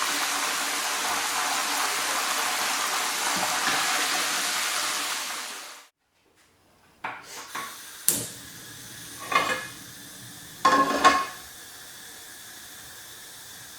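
A steady loud hiss that cuts off suddenly about six seconds in, then a few short ringing clinks of pans and utensils.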